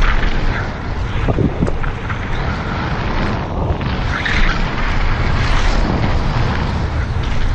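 Wind buffeting an action camera's microphone on a mountain bike descending a dirt trail at speed, over the steady rush of tyres on dirt and gravel. A few sharp knocks about a second and a half in.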